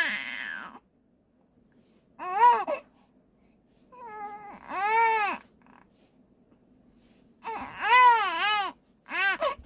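A newborn baby crying in short, high-pitched wails that rise and fall in pitch, about five of them with brief pauses between. The baby has hiccups.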